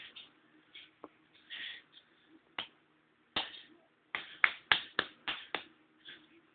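Sharp irregular clicks and taps, with a quick run of about seven in the middle, from a small dog pawing and mouthing at the camera up close.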